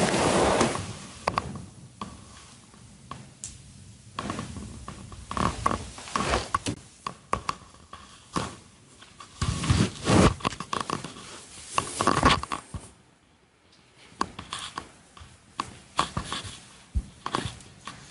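Fabric rustling from bedding and clothing as a person gets out of bed and pulls on a hooded top, in irregular bursts with small scrapes and knocks. It goes briefly quiet about thirteen seconds in.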